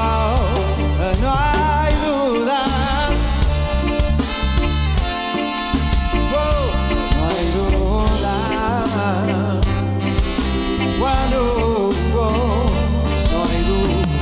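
Live reggae band playing a passage without lyrics: a heavy bass line and drum kit under a lead melody that bends and wavers in pitch.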